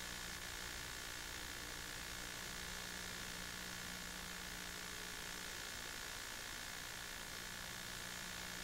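Steady hiss with a faint constant electrical hum and nothing else, the noise floor of a transfer from soundless mid-1970s home-movie film.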